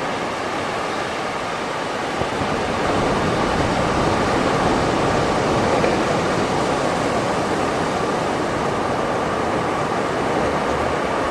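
Calm sea surf washing onto a beach: a continuous wash of water noise that swells a little about three seconds in and eases off again.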